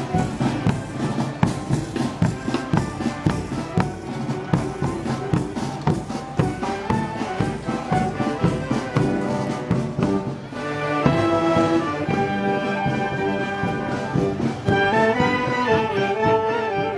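Brass band playing Moros y Cristianos festival music: a busy passage over steady drumbeats, then about ten seconds in the brass swells into long held chords.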